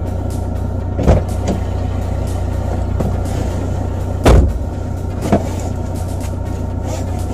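Car door and seat thumps as the driver climbs into a Suzuki car, the loudest about four seconds in as the driver's door is pulled shut, over a steady low hum.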